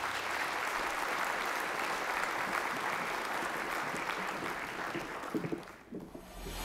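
A congregation applauding, a steady wash of clapping that fades out about five to six seconds in.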